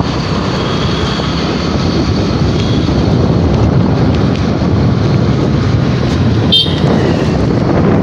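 Two-wheeler riding along a road: its engine running steadily with wind rumbling on the microphone. About six and a half seconds in, a brief high-pitched toot sounds.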